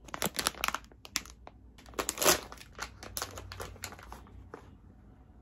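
Clear plastic candy bag of gummy strawberries crinkling and crackling in the hands as it is opened and a gummy is taken out. The crackles are loudest about two seconds in and thin out near the end.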